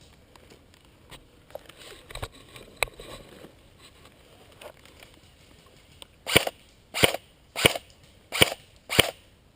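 VFC SCAR-H airsoft rifle firing single shots, five in a row under a second apart, starting about six seconds in. Before them there are some quieter clicks and rustling.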